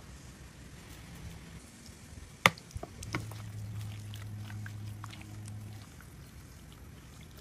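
Steak being mixed by hand in a glass bowl of liquid marinade, with soft wet handling sounds. A single sharp clink comes about two and a half seconds in, then a few lighter clicks, and a low steady hum runs from about three to six seconds in.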